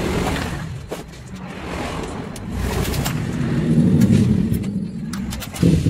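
Powered impact wrench running in spells against the bolts of a motorcycle engine's crankcase, with metal clicks between spells. It cuts back in sharply and louder near the end.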